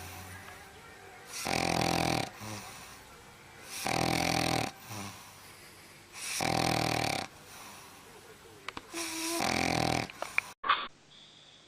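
Dog snoring loudly in its sleep: four long snores about two and a half seconds apart, each lasting about a second. Near the end a few sharp clicks, then the sound cuts off abruptly.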